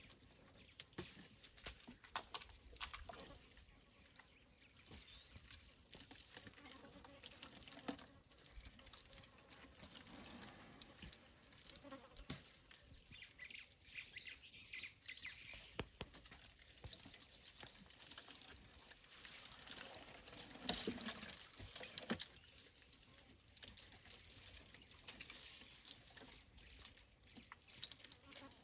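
African savanna elephant chewing and pulling at thorny acacia branches: a dense, irregular crackle of snapping twigs and rustling leaves. The loudest crunching comes about two-thirds of the way through.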